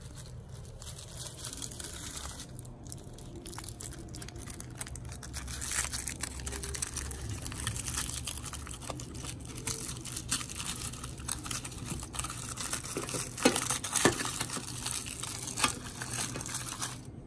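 Aluminium foil being crinkled and torn open by hand as it is unwrapped from a small toy car. The crackling picks up about two seconds in and is sharpest near the end.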